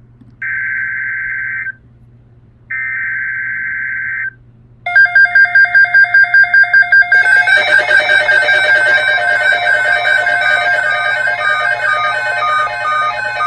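Emergency Alert System broadcast: two short buzzy data bursts of the digital header, then an electronic alert tone that pulses about six times a second from about five seconds in and turns into a chiming run of shifting multi-pitched tones at about seven seconds.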